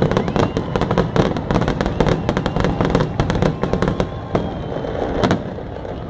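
Aerial fireworks shells bursting in a rapid barrage, many sharp bangs and crackles overlapping. The bangs thin out after about four seconds, with one loud bang about five seconds in.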